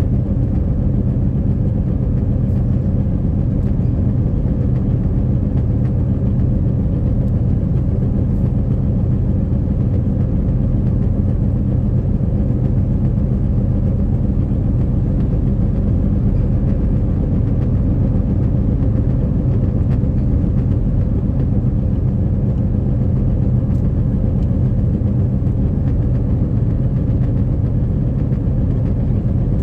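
Car cabin noise while driving at a steady speed: a low, steady engine hum and tyre rumble.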